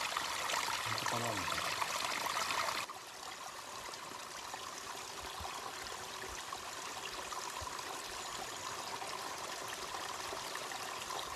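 Forest stream running over rocks, a steady rushing of water that drops abruptly quieter about three seconds in.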